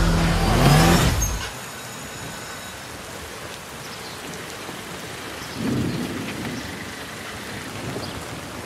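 Music ends just over a second in, giving way to a steady rain hiss with a low roll of thunder swelling about two-thirds through.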